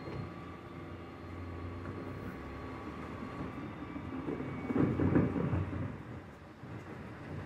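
Refuse collection lorry running with a steady low engine hum, and a louder rumble for about a second, about five seconds in.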